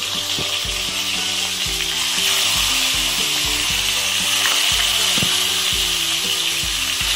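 Pieces of katla fish sizzling as they fry in hot mustard oil in a pan, an even hiss that grows louder about two seconds in as more pieces go into the oil.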